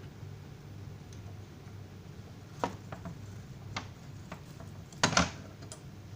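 A few sharp clicks and light knocks of small parts being handled, the loudest a quick cluster about five seconds in, over a steady low hum.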